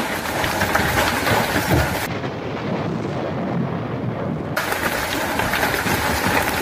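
Heavy hail pelting down: a dense, steady clatter of many small impacts on the ground and paving. A duller, muffled stretch without the crisp top end comes in for a couple of seconds in the middle.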